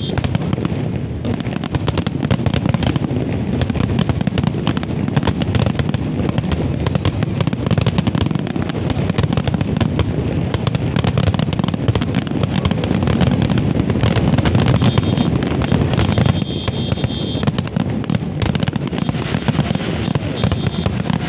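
Aerial fireworks bursting in quick succession: a dense, unbroken stream of bangs and crackling.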